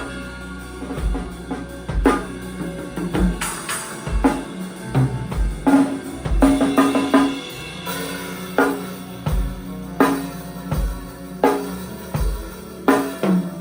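Live drum kit playing a steady beat of kick and snare hits, with other band instruments sounding underneath.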